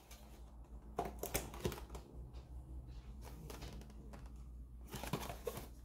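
Faint clicks, taps and rustles of a small cardboard display box being handled and its hinged lid opened, with a few clusters of light taps about one second in and again near five seconds.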